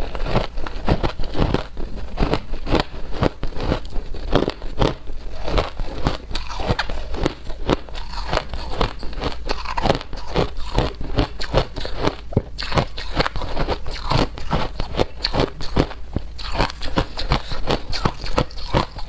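A person biting and chewing ice, close up: a continuous stream of sharp, crackling crunches, several a second.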